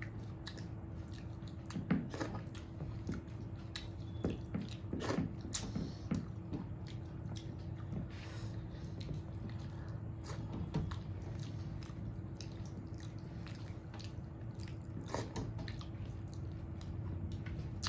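A person chewing and eating rice with curry: scattered wet mouth smacks and small clicks, over a steady low hum.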